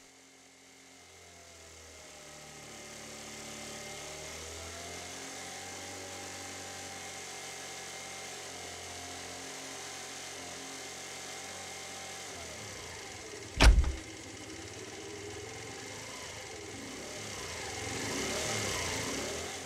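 Motor scooter engine running, getting louder near the end as it pulls away. A single sharp hit sounds about two-thirds of the way through.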